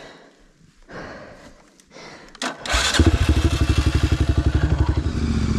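Motorcycle engine starting up a little under three seconds in and settling into a fast, even idle.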